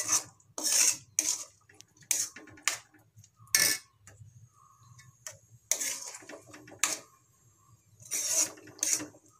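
A metal spoon scraping and knocking against a metal kadhai as thick carrot halwa is stirred, in irregular strokes about a second apart.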